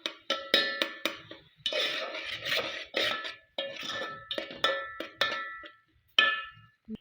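A metal utensil knocking and scraping against a metal cooking pot, about a dozen clanks that each leave a short ringing tone, with longer scraping stretches between them.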